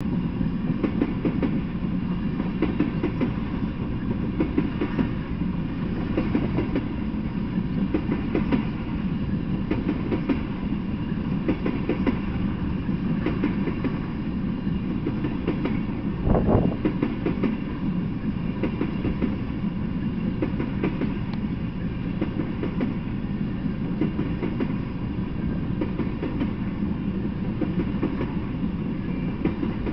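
Freight train of tank cars rolling past: a steady rumble of steel wheels on rail, with scattered clicks and one louder bang about halfway through.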